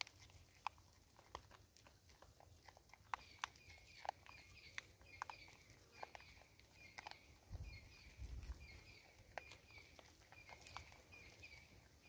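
Vervet monkeys feeding on dried corn kernels: faint, scattered sharp clicks and crunches of kernels being picked up and chewed close to the microphone. From about three seconds in, a bird calls in the background with a quick repeated series of short high chirps.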